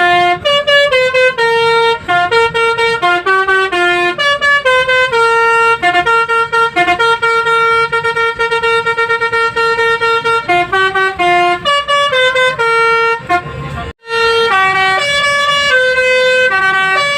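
Basuri V3 telolet multi-tone bus horn playing a melody of quick stepped notes, some short and some held, with a brief break about 13 seconds in before the tune starts again.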